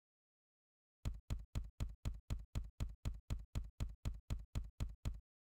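Typing sound effect: a steady run of about twenty keystroke clicks at about five a second, starting about a second in, laid over text being typed out letter by letter.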